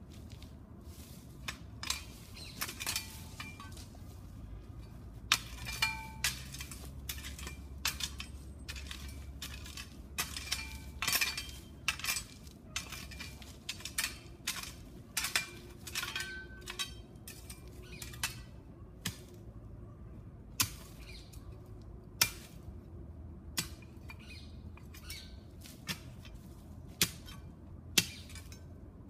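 Irregular sharp metallic clinks and scrapes of a spade and hand tools striking stones while digging stony ground at the base of a fence post.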